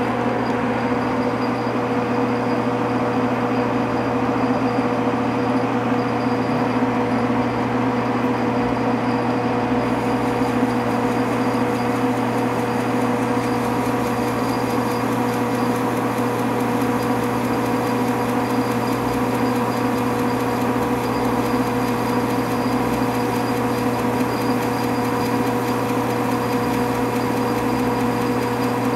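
Metal lathe running with a steady hum from its motor and gearing while a ground radius form tool cuts a rounded edge on a spinning aluminum cap blank.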